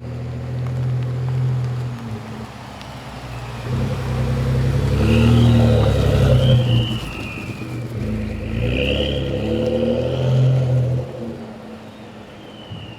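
Twin-turbo 3.5-litre EcoBoost V6 of a 2015–2017 Ford Expedition/Lincoln Navigator, fitted with a turbo-back performance exhaust, revving up twice. A high turbo whistle rises as the engine picks up and glides down as it eases off, with another falling whistle near the end.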